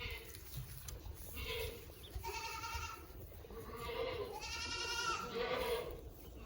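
Boer goats bleating: three or four calls from several animals, the last and longest with a wavering pitch.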